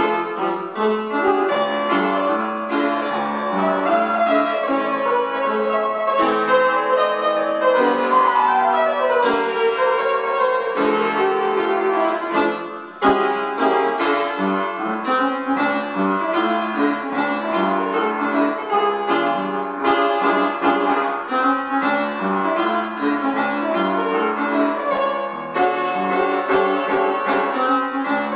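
Upright piano played with both hands: a fast piece full of quick runs of notes, including a falling run, with a brief drop in loudness about halfway through before a loud struck chord.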